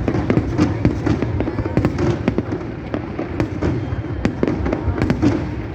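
Fireworks going off: a dense, irregular run of sharp bangs and crackles over a steady low rumble.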